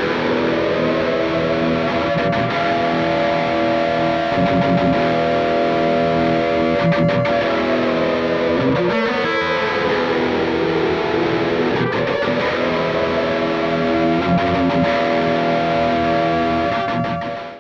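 Distorted electric guitar holding one long sustained chord; its pitch slowly sags and comes back up midway, and it cuts off abruptly near the end.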